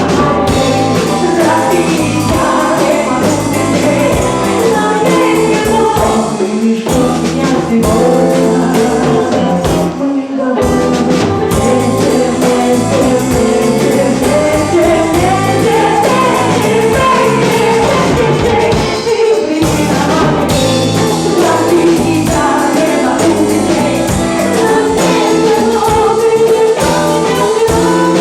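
Live band music with singing, loud and steady, with brief breaks about ten and nineteen seconds in.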